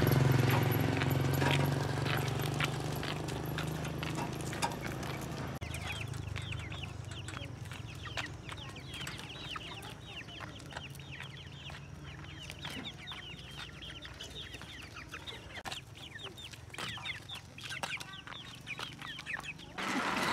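Chickens calling, many short overlapping clucks and cheeps. For the first several seconds they sit under a low steady hum that fades away.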